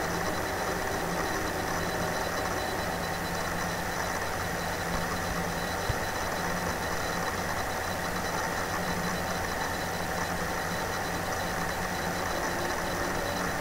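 Steady background hiss with a low hum, with a single sharp click about six seconds in.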